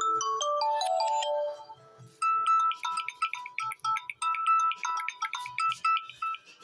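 Samsung Galaxy A14 built-in ringtones played one after another. One melody ends with a falling run of notes, and after a short gap about two seconds in, the next ringtone starts: a quick, even pattern of bright notes hopping between two pitches.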